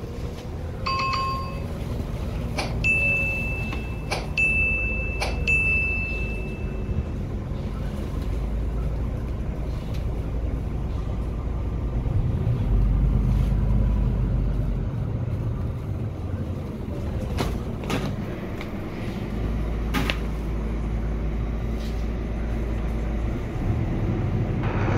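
City bus interior while riding: steady engine and road rumble that swells twice. There is a short electronic beep about a second in, three higher beeps between about 3 and 7 seconds, and a few scattered rattles and clicks.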